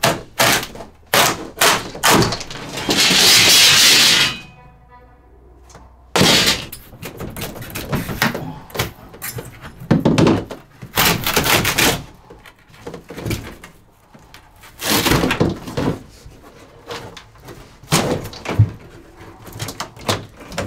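Interior wall liner being pried and torn off a fiberglass truck camper's walls: a run of knocks, thuds and scraping, with one long tearing rip about three seconds in.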